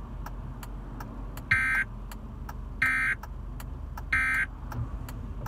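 Emergency Alert System end-of-message (EOM) signal: three short, harsh bursts of SAME digital data tones, each about a third of a second, roughly 1.3 seconds apart. They mark the end of the tornado warning broadcast.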